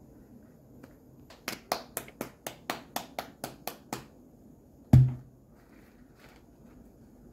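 Bare hands patting a ball of corn masa (tortilla dough) between the palms: about a dozen quick slaps, about five a second. About five seconds in comes a single heavy thump, the loudest sound here.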